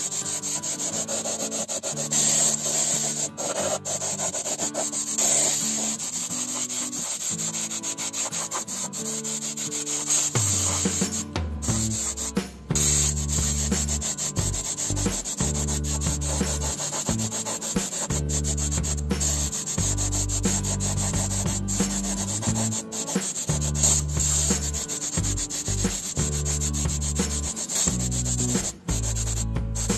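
Steady scratchy rubbing noise like sanding, with background music whose deep bass line comes in about ten seconds in; the sound cuts out briefly a few times.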